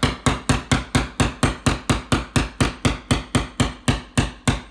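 Hammer lightly tapping a chisel into sheetrock in a steady run of quick strikes, about four a second, chipping a small hole through the wall.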